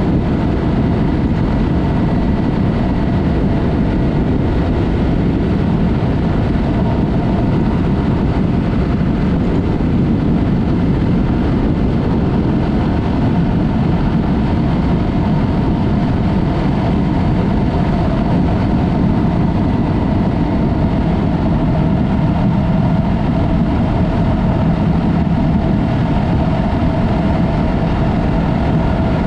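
Yamaha MT-03 with a Mivv aftermarket exhaust ridden at a steady speed: a steady engine drone under heavy wind rush on the helmet or bike-mounted camera, with no revving or gear changes.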